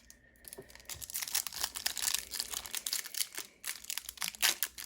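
Plastic wrapper of a baseball card pack crinkling as it is torn open and handled, a dense run of irregular crackles.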